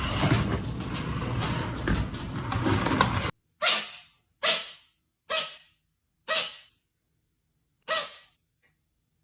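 A pet sneezing five times, each a short sharp burst about a second apart, after a few seconds of noisy, jumbled sound that cuts off abruptly.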